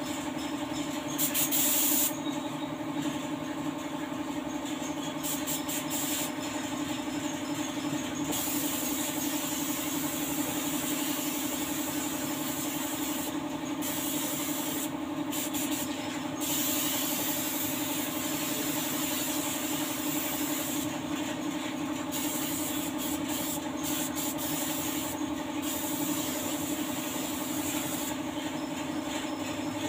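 Air-fed paint spray gun hissing in on-and-off bursts as the trigger is worked, over a steady machine hum, with one louder burst of hiss near 2 seconds.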